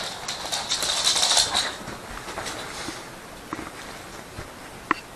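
Rapid scratchy clicking and scuffling from a dog's tug-of-war with a rope toy on a hard floor, loudest for about the first two seconds. After that come fainter sounds of the dog chewing the rope, with one sharp click near the end.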